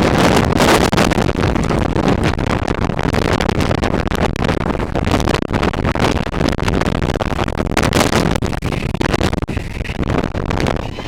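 Boeing 747's jet engines at takeoff thrust, with the jet blast buffeting the microphone: a loud, steady roar with a constant gusty crackle, easing a little near the end.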